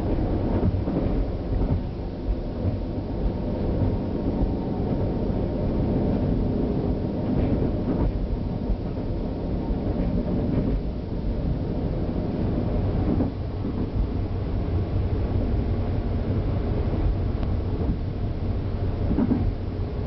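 Running noise of a KTR001 series diesel railcar from inside the driver's cab: a steady low rumble of engine and wheels on rail, with a few faint clicks as the wheels pass over rail joints and points.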